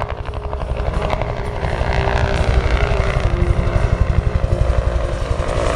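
Bell UH-1 Huey helicopter flying past, its two-bladed main rotor beating in a rapid, even pulse over a loud low rumble.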